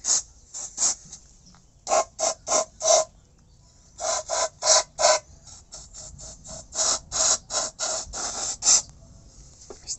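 Aerosol carburetor cleaner sprayed in short bursts into a motorcycle engine crankcase, its pressure flushing out metal shavings. A couple of single hisses come first, then runs of quick bursts about four a second.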